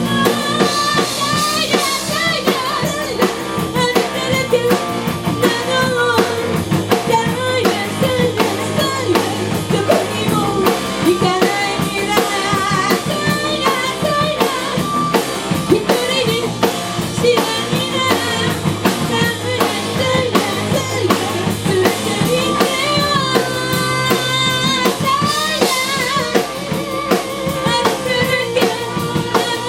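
A band playing a rock song, with a drum kit keeping a steady beat under electric guitar and a singing voice.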